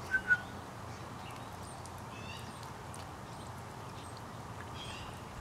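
Two quick high kissing clicks, a call to bring a dog over, then a steady low outdoor background with a few faint chirps.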